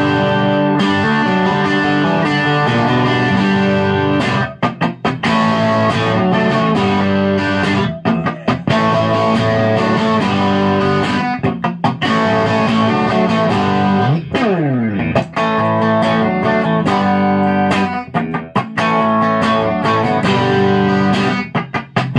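Electric guitar played through a Ceriatone One perCentaur overdrive pedal set with the burn all the way down and the output all the way up, into a tube amp: loud chords and riffs with brief breaks between phrases and a sliding rise in pitch about fourteen seconds in.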